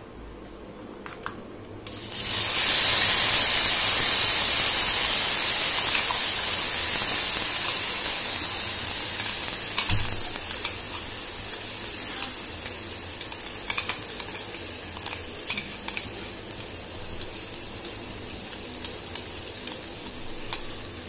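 Wet ground onion-tomato masala paste hitting hot oil in a steel kadai: a loud sizzle starts about two seconds in and slowly dies down as the paste settles. Sharp clinks of a steel spoon scraping the mixer jar and the pan come through in the second half.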